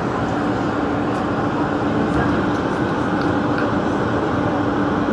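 Subway train running at steady speed: a constant rumble with a steady hum underneath.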